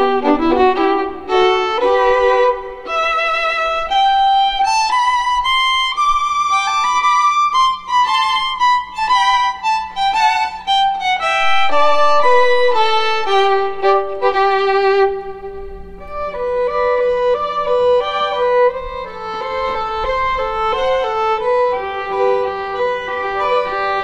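Background music: a slow violin melody with vibrato on held notes, stepping up and down over a faint steady low drone.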